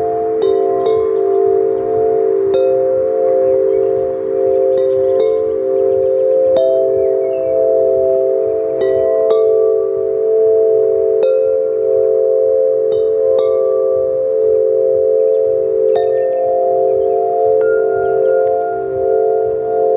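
Large handmade tubular bells struck one after another at irregular intervals, every second or two. Their low tones ring on and overlap into a continuous sound.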